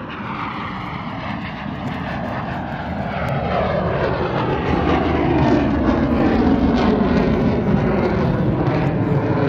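Jet noise from a Blue Angels F/A-18 Super Hornet flying past, growing steadily louder as it comes overhead, with a whine that slides down in pitch.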